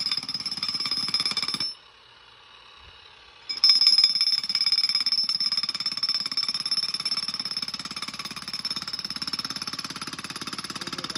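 Corded Makita electric jackhammer driving its spade bit into packed dirt: fast, even hammering with a steady high motor whine. It stops for about two seconds, then starts again and keeps running.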